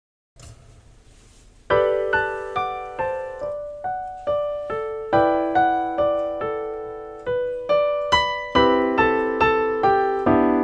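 Piano-toned keyboard playing a slow melody over chords, each note struck and then fading. It comes in about a second and a half in, after a faint hiss.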